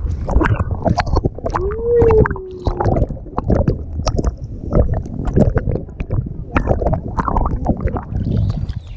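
Water splashing and sloshing against a GoPro housing held at the surface, with many irregular knocks and bumps. A short tone rises and then slides down about two seconds in.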